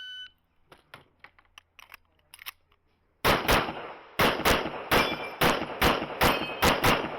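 Shot timer's short start beep, a few faint ticks, then from about three seconds in rapid pistol fire from an IPSC competitor: around a dozen loud shots, often in quick pairs a quarter second apart.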